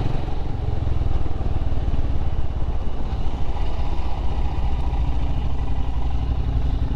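Royal Enfield Himalayan's single-cylinder engine running steadily on the move, with wind noise over it.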